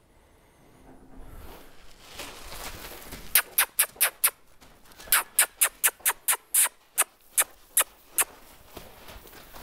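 A quick run of about fourteen short, sharp squeaks in uneven clusters over about five seconds.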